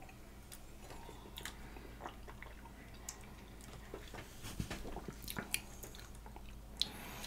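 Faint mouth sounds of two people tasting whiskey: a sip, then scattered soft lip smacks and tongue clicks over a low room hum.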